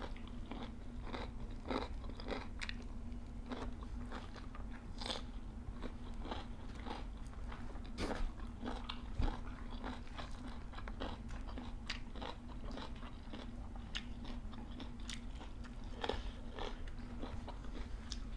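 Close-up crunching and chewing of raw vegetables and leafy greens, in many irregular crisp bites. A steady low hum runs underneath.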